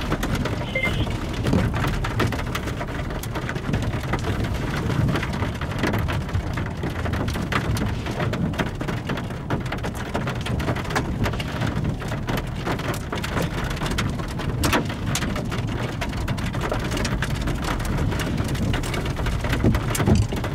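Steady rain falling, with many separate drops tapping sharply close by.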